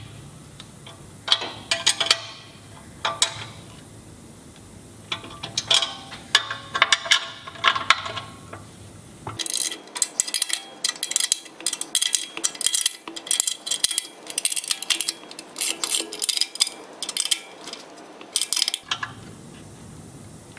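Steel hand tools clinking against steel bolts and nuts as a spanner and Allen key tighten the lower control arm guard's bolts: scattered sharp metallic clicks and taps. From about nine seconds in to near the end the clicks come in a faster, denser run.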